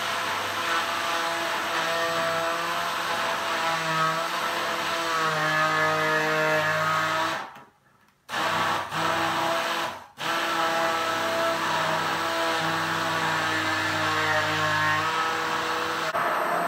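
Electric stick (immersion) blender running in a tall beaker, puréeing parsley, apple and ginger into a green juice; its motor pitch shifts as the load changes. About halfway through it stops for under a second, then runs on, with another brief cut shortly after restarting.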